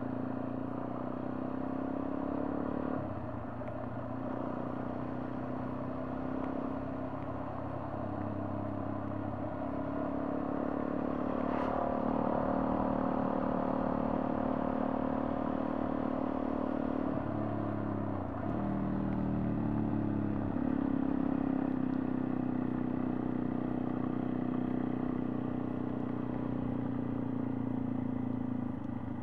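Motorcycle engine running steadily on the move, heard from the rider's camera. Its note changes about 3 seconds in, and again around 18 seconds in, where it drops and then picks back up.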